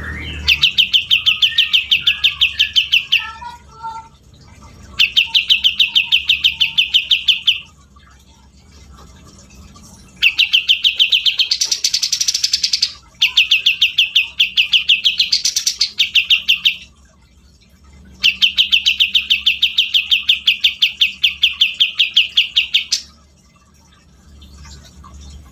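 Cucak jenggot (grey-cheeked bulbul) singing in five long runs of fast, evenly repeated high notes, about six a second, with short pauses between runs.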